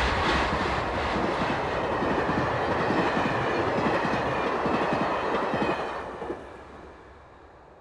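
A train passing close by, its wheels clattering on the rails. The sound holds steady, then fades out from about six seconds in.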